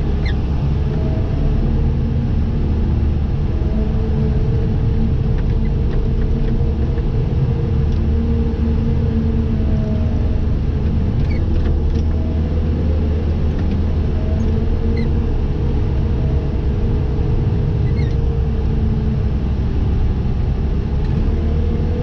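Wheel loader's diesel engine running steadily as the loader pushes snow with a pusher box, heard from the operator's seat.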